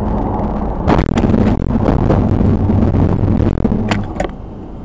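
Car engine and road noise heard from inside a moving car's cabin: a steady low drone with a hum. A few sharp clicks cut through it, about a second in and again near four seconds, and the drone eases off near the end.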